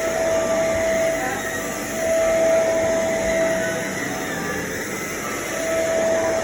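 Vacuum cleaner running with a steady rushing noise and a motor whine that fades out twice and comes back.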